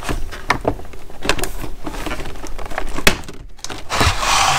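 Plastic clamshell blister pack being pried open by hand: a run of sharp clicks and crackles as the pop clips let go, then a short rasp of plastic rubbing near the end.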